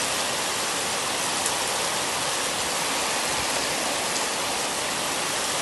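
Heavy tropical downpour, a steady, even hiss of rain that does not let up.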